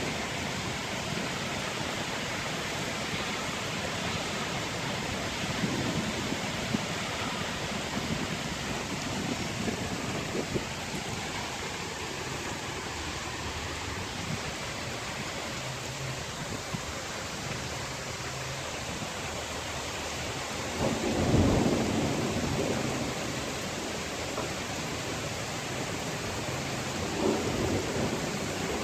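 Steady rain with a continuous hiss, and rolls of thunder rumbling through it, the loudest about two-thirds of the way in and another near the end.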